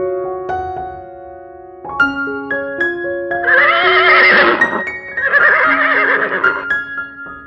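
A horse whinnying twice, each call lasting over a second with a quavering, shaking pitch, over soft piano music.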